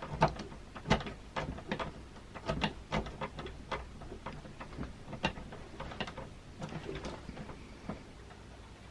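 Irregular small clicks and scrapes of a hand tool working on a painted antique door knob and its metal plate, thinning out toward the end.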